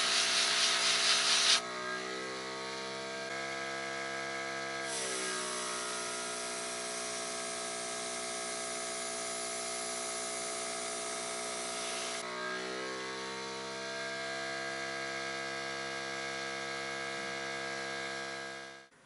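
Small airbrush compressor running with a steady hum while the airbrush sprays paint with a loud hiss, first briefly at the start and then again for about seven seconds in the middle. The compressor's pitch slides each time the spraying starts or stops.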